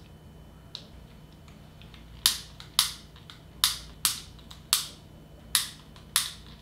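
Piezo igniter of a long-necked utility lighter clicking about seven times in quick, uneven succession, the lighter not catching to light the birthday candles.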